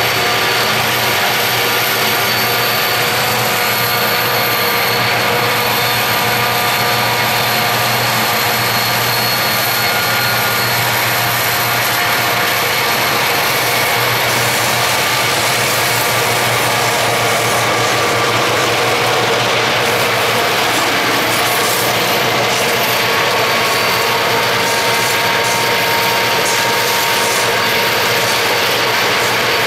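Steady mechanical drone of a moving vehicle heard from inside a car, with several held humming tones over a constant rushing noise.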